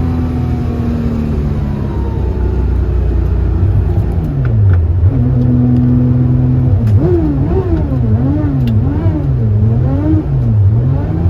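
Porsche 2.7 RS-spec engine running, then from about four seconds in revved up and down again and again, about one blip a second. A whirring noise is mixed in, which the owner is trying to track down.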